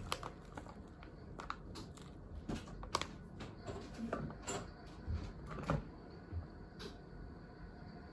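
Scattered light clicks and small knocks with a couple of soft low thumps: a gooseneck electric kettle and other things on the table being handled, the kettle picked up and lifted off its base.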